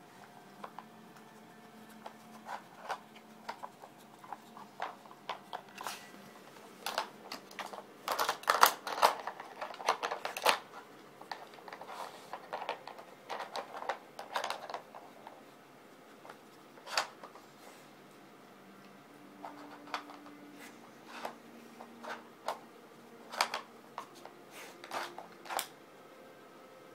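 Plastic pieces of a Dog Brick interactive puzzle toy clicking and knocking as a dog works them to get at the treats: irregular taps, with a quick flurry about a third of the way through and scattered clicks after.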